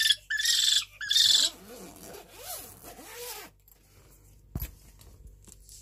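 Northern hawk owl giving its morning 'ululu' calls: two loud, high calls in the first second and a half, then a run of softer rising-and-falling notes. A single sharp click comes about four and a half seconds in.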